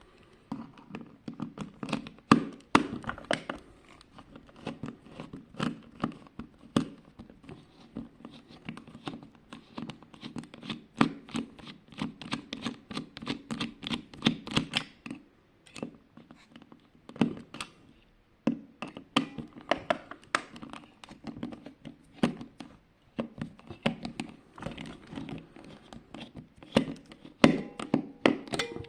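Plastic case of a projection alarm clock being handled and taken apart: irregular clicks, taps and knocks of hard plastic, fast and dense at times, with brief pauses.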